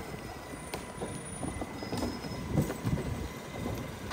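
Mack MRU rear-loader garbage truck's diesel engine running at a standstill, a steady low rumble with a faint steady whine over it.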